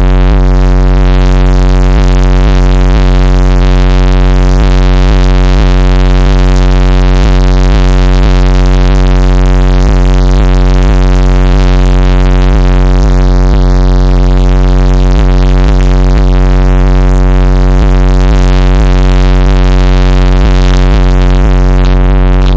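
A van's car-audio subwoofer system playing extremely loud, steady deep bass. It overloads the recording into a continuous distorted drone with buzzing overtones and a faint regular pulse.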